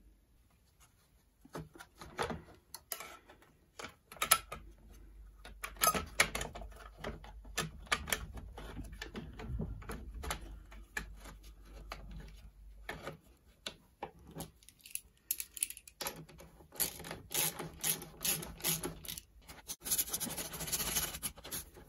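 Irregular clicks, knocks and light rattles of a plastic air filter housing and metal parts being handled and pushed onto the carburettor studs of a Honda GCV mower engine. Near the end a nut driver tightens the housing's fixing, with quicker runs of clicks.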